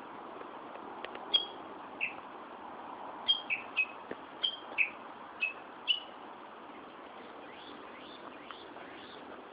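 A small songbird calling in short, sharp chirps, each sliding down in pitch, several in quick pairs, with fainter chirps near the end. Underneath is a steady hum of distant city traffic.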